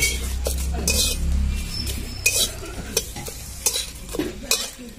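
A flat metal spatula scrapes and stirs bay leaves around a dry, hot metal kadai in repeated short strokes. The bay leaves are being dry-roasted with no oil. A low rumble runs under the first two seconds.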